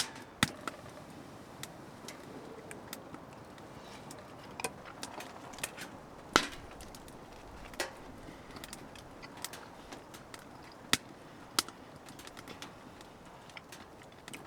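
Cutlery clicking and tapping against a dish while eating: scattered sharp clicks and a few louder knocks at irregular intervals.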